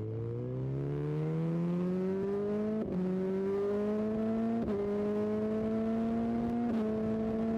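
Motorcycle engine accelerating hard, its pitch climbing steadily through the gears, with three quick upshifts about 3, 4.5 and 6.5 seconds in, each a brief dip in pitch before it climbs again.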